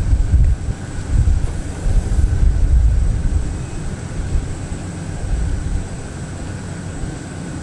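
Aircraft on an airport apron with its engines running: a loud, gusting low rumble with a faint steady high whine above it, the rumble swelling and easing in gusts from wind buffeting the microphone.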